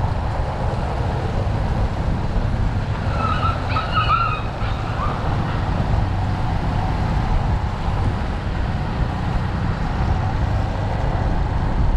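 Motorcycle engine running steadily as the bike rides along a rough village lane, with wind and road noise over the microphone. A few short high-pitched chirps come through about three to four seconds in.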